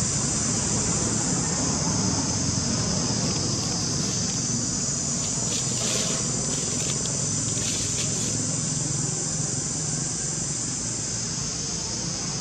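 Steady, high-pitched chorus of insects, with a low steady rumble underneath.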